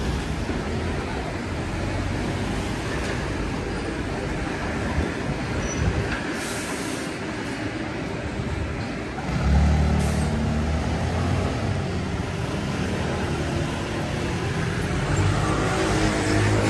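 Road traffic on a city street, with a heavy vehicle's low engine rumble coming in loud about halfway through and again near the end. A short hiss sounds around six seconds in.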